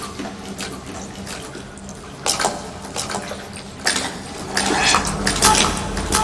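Footsteps of a group of men walking over gritty ground: scattered scuffs, scrapes and clicks that come thicker and louder near the end.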